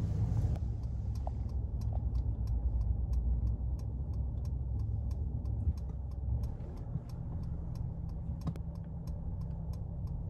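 Car interior at low speed with a steady low rumble from the engine and road. Over it runs the even tick-tock of the turn-signal indicator, starting about half a second in, as the car waits to turn at an intersection.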